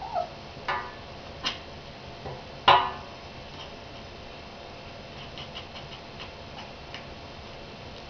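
Domestic cat chattering at birds: a few short chirps, the loudest about two and a half seconds in, then a run of fainter quick clicks.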